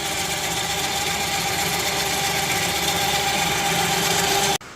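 Electric winch winding its cable back onto the drum, a steady mechanical hum that grows slightly louder, then cuts off abruptly near the end.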